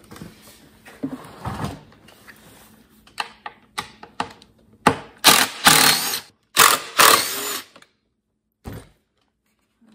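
Cordless impact driver running in several short bursts, backing out the bolts on a backpack leaf blower's frame, with small knocks and clicks of the tool being placed before it. One short knock near the end.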